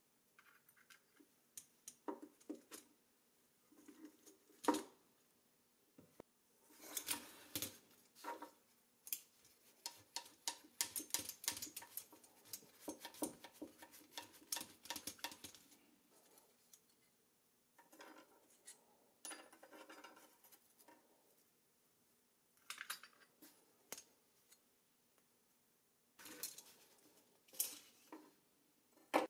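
Small rusty steel parts of a 1950s Doepke toy car (wheel, chassis pieces, axle rod and nut) clinking, scraping and rattling as they are handled and taken apart by hand. Scattered clicks and knocks, with a dense run of them for several seconds in the middle.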